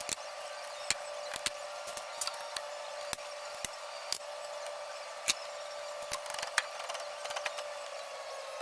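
A shop motor running at a steady speed with a constant hum, while metal parts and tools click and knock sharply many times over it.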